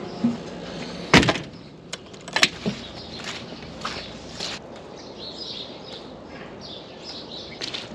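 A metal-framed door is pushed open and bangs sharply about a second in, with a second, lighter knock about a second later. Then footsteps go over muddy ground.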